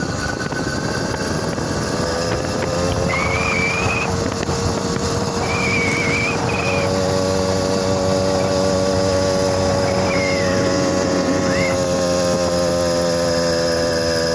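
100cc two-stroke motorized-bicycle engine running under way, its pitch rising a little over the first few seconds and then holding steady. It breathes through an exhaust with the inner baffle tube cut out and runs a 72 main jet, so it sounds fairly quiet for the engine.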